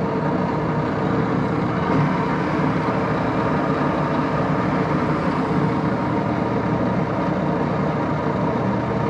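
1941 Axelson 24-speed geared-head lathe running steadily, its headstock gear train making a dense, even mechanical noise with several steady tones. The machine is being run to circulate oil in its headstock after years of sitting idle, and the owner judges that it sounds pretty good.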